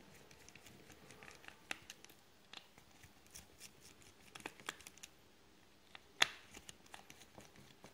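Faint, scattered clicks and scratches of a precision Torx screwdriver turning small screws out of a mobile phone's frame, with one sharper click about six seconds in.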